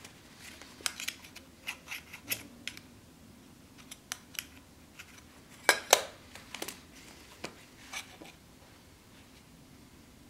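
Scattered light metallic clicks and taps of thin sheet-metal pieces and a steel vernier caliper being handled and set down on a leather-covered work surface. The loudest is a sharp pair of clicks about halfway through.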